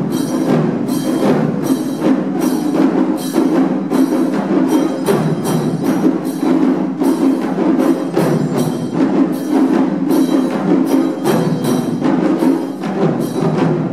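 A Japanese taiko ensemble beating barrel drums with sticks in a fast, dense rhythm of many strokes together, ending suddenly at the close of the piece near the end.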